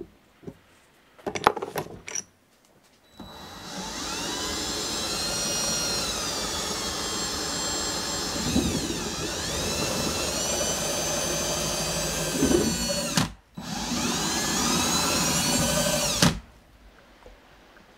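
A few sharp metal clicks, then a powered drill spindle winds up and runs with a high whine while the bit bores into an aluminum bolt blank. Its pitch sags for a moment around the middle as the bit takes load. It stops briefly, spins up again and cuts off near the end.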